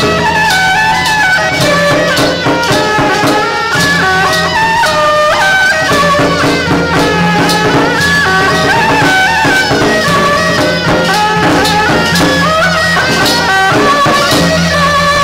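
Traditional Taiwanese temple-procession music: a loud, reedy wind melody in quick stepping notes over a steady low drone, with drum and cymbal strokes.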